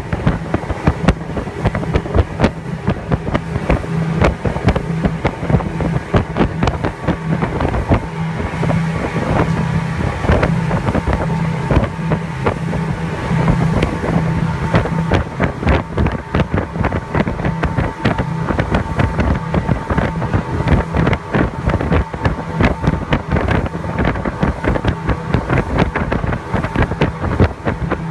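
Speedboat engine running steadily at speed, a continuous drone, with frequent irregular knocks of the hull slapping over the waves and wind buffeting the microphone.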